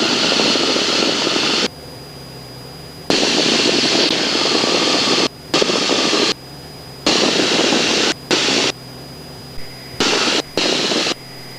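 Cessna 172 engine drone in the cockpit, heard through the headset intercom, with loud bursts of hiss that switch on and off abruptly several times as the audio gate or radio squelch opens and closes.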